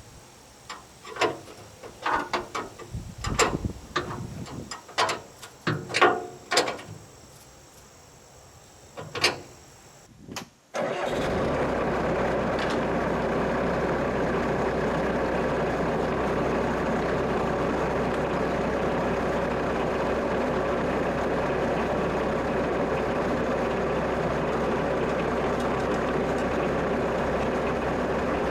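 A series of separate knocks and clicks, then about a third of the way in the Bobcat 763 skid steer's diesel engine comes in suddenly and runs steadily at an even level, with its new muffler and exhaust pipe fitted.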